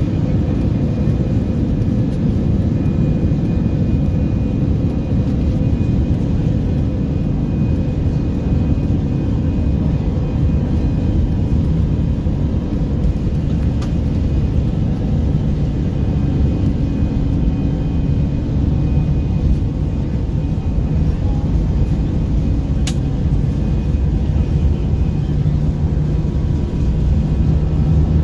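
Airbus A319's jet engines at takeoff thrust, heard from inside the cabin during the takeoff roll: a loud, steady rumble with a faint hum running through it. A single sharp click sounds about 23 seconds in.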